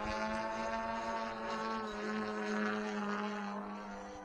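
Desert Aircraft DA-120 twin-cylinder two-stroke gas engine of a large radio-control aerobatic plane in flight, running at a steady high pitch with its propeller buzz, getting a little fainter near the end. The engine is pulling strongly again after its trouble, its torque back by the pilot's reckoning.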